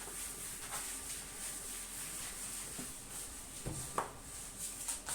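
Quiet room tone: a steady faint hiss with two faint short clicks close together a little before four seconds in.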